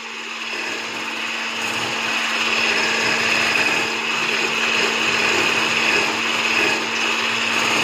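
Electric hand blender with a whisk attachment running steadily while whipping cream in a stainless steel bowl, getting a little louder over the first couple of seconds. The cream is fully whipped.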